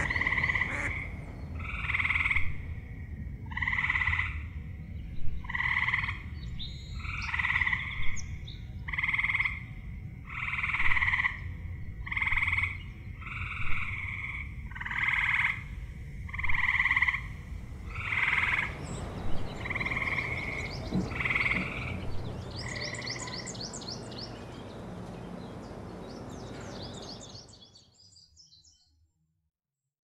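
Frogs calling, one call about every one and a half seconds over a low steady background rumble. The calls thin out after about twenty seconds, and a faint high twittering comes in before everything fades out.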